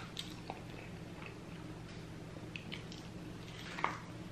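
Close-up chewing of a cheesy double cheeseburger: soft, wet, squishy mouth smacks and clicks, with one sharper smack near the end. A faint steady hum sits underneath.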